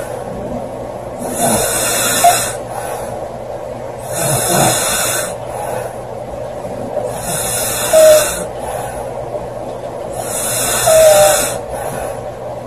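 A girl snoring loudly in slow, regular breaths, about one snore every three seconds, four in all, some ending in a brief high squeak.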